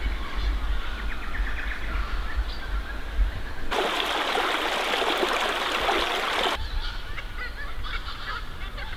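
Birds chirping over a low rumble. About four seconds in, a creek running and splashing through fallen logs takes over for about three seconds, starting and stopping abruptly. Then the birds and low rumble return.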